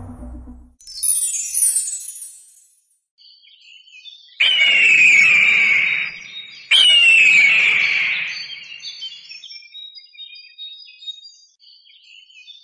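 Music and sound effects for a title sequence: a falling sweep of high tones, then two sudden loud hits about two seconds apart, each with a ringing tone that falls in pitch and dies away, followed by faint short high chirps.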